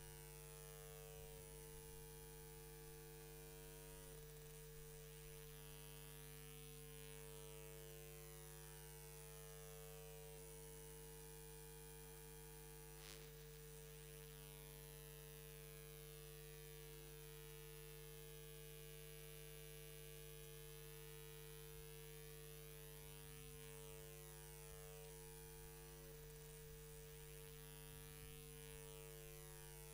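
Near silence filled by a steady electrical mains hum made of several fixed tones. A single faint click a little before halfway.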